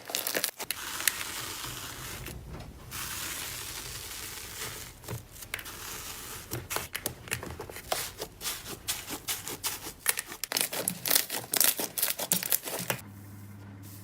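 Slime being handled: crinkly, crackling texture that gives way to a dense run of sharp clicks and pops, then drops to a quiet low hum near the end.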